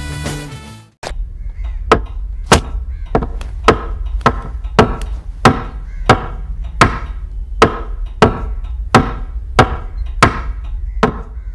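Music cuts off about a second in. Then come sharp, evenly spaced knocks, about one and a half a second, over a steady low hum.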